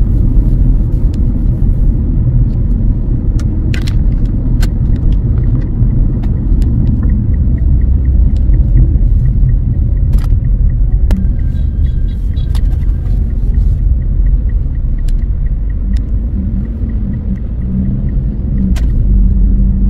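Low, steady rumble of a car on the move: road and engine noise, with scattered faint clicks.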